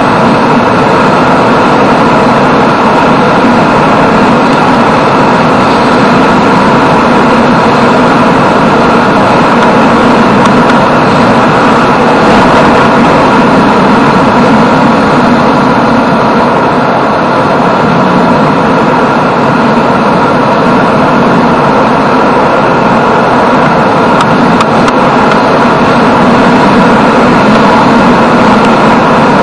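Yamaha Jupiter MX 135 motorcycle running steadily at cruising speed, heard from the rider's seat with heavy wind rush on the microphone.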